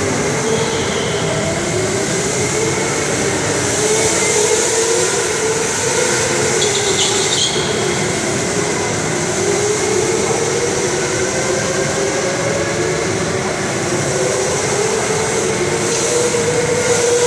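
Electric go-karts running laps on an indoor track, their motor whine rising and falling in pitch as they speed up and slow through the corners, over a constant hiss. The hiss grows louder twice as a kart passes close, with a few short tyre squeaks about seven seconds in.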